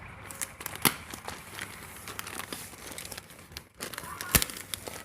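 Parcel packaging crinkling and tearing as it is opened, with two sharp snaps, one about a second in and a louder one near the end.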